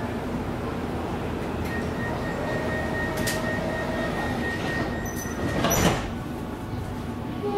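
Sliding doors of a Siemens electric multiple-unit train closing. A steady high warning tone is held for a few seconds, then the doors shut with a loud sweep and thud about six seconds in, over the steady hum of the standing train.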